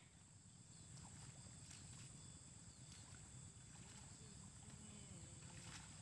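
Near silence: faint open-air ambience, a low steady rumble under a constant high thin whine.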